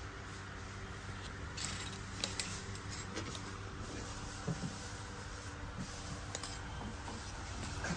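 Clothes hangers clicking and scraping against a metal rack rail as garments are pulled out and handled, a few scattered sharp clinks over a steady low hum.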